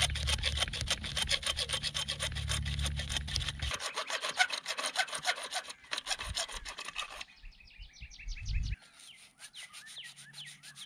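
Hacksaw cutting through PVC drain-field pipe in quick, even back-and-forth strokes, several a second. From about seven seconds in the strokes become lighter and fainter.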